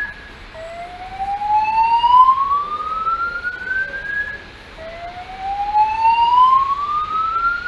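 Fire alarm evacuation speakers sounding the slow whoop tone: a single tone rising steadily in pitch over about four seconds, then dropping back and rising again, twice. The whoop alternates with a recorded voice evacuation message.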